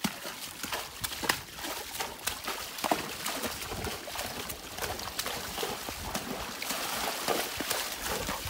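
Gaited horse walking slowly on a trail, hooves clopping and scuffing in an irregular run of knocks.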